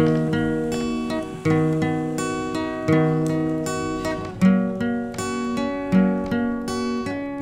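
Background music of a strummed acoustic guitar, a new chord struck about every second and a half.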